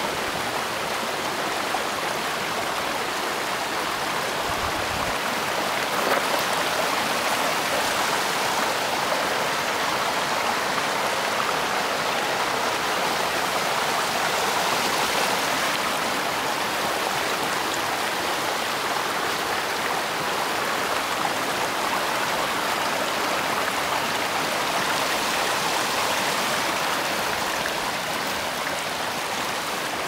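Shallow mountain stream flowing over rocks and pebbles: a steady rush of running water.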